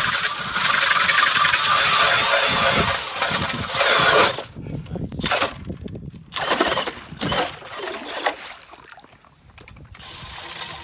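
Ice auger driven by a cordless drill boring through lake ice, the bit grinding and throwing out ice chips. The drilling is loud and continuous for about four seconds, then runs in short bursts and eases off before starting again near the end.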